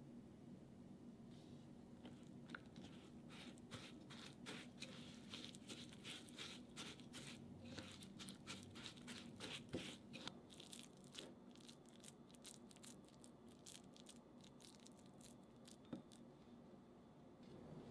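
Silicone spatula stirring Oreo crumbs and melted butter against a glass bowl: faint, quick, irregular scraping and crunching, busiest from about two seconds in and thinning out after about twelve seconds.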